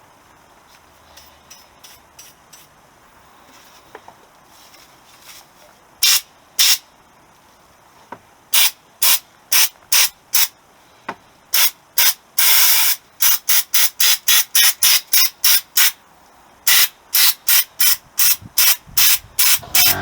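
Gravity-feed soda blaster firing short blasts of compressed air and baking soda, first a few spaced blasts, then a rapid string of them from about the middle on, with one longer blast of about a second among them. The blasts are kept short because the small compressor cannot keep up with the blaster's air demand.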